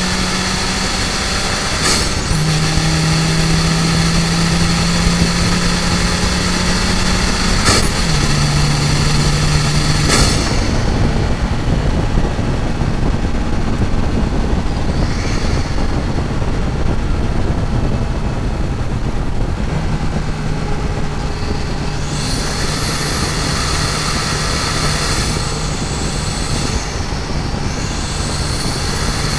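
Mazdaspeed3's turbocharged 2.3-litre four-cylinder heard from inside the cabin, pulling hard on track with wind and tyre noise; the engine note climbs and drops sharply at two gear changes about two and eight seconds in. After about ten seconds it eases off, and from about twenty seconds it holds a steady note.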